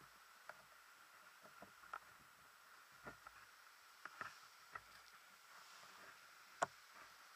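Near silence with a faint steady hiss and scattered small clicks and crunches of gravel under a mountain biker's shoes as he stops and stands, with one sharper click near the end.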